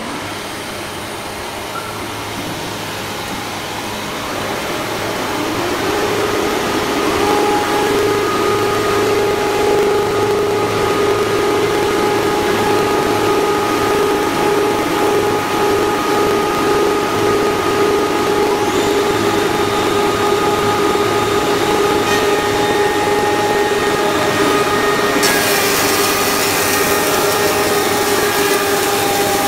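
REIGNMAC RMM633 heavy-duty four-side moulder running: a steady machine hum with a high whine over it, growing louder over the first several seconds. A brighter hiss joins about 25 seconds in.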